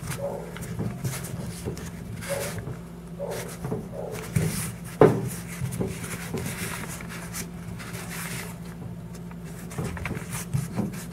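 Hands pressing and stretching a sheet of heated EVA foam over a round modeler on paper: rustling and handling noise with short squeaks, and one sharp tap about five seconds in, over a steady low hum.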